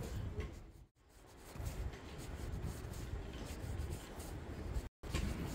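Background noise of a large airport terminal hall: a low rumble with scattered faint knocks. The sound fades out briefly about a second in and cuts out for a moment near the end.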